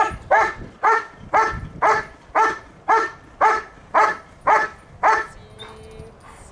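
A dog barking in a steady rhythm, about two barks a second, then stopping about five seconds in.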